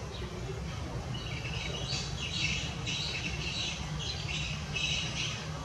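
A series of short, high-pitched chirping calls, starting about a second in and repeating every half second to a second, over a steady low background hum.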